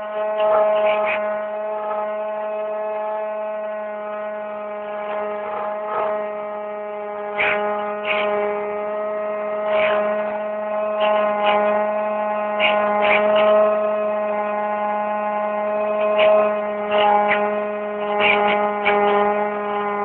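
The electric motor and propeller of an EasyStar RC plane running steadily in flight, heard through a phone riding on board: a constant whine with several even tones. Brief rushes of noise cut across it now and then.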